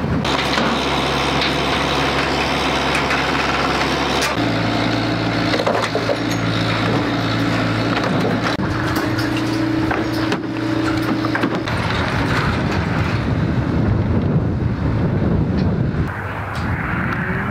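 Engines of heavy clean-up equipment running steadily at idle, one machine and then another with a lower, different hum after a cut, with scattered knocks and clatter of debris being handled. After about twelve seconds the engine hum gives way to a steady rushing like wind on the microphone.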